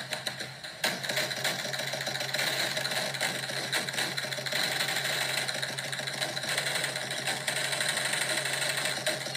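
A steady mechanical drone, like an engine or generator running, under heavy hiss, with a brief knock about a second in. It is re-recorded from a screen's speaker.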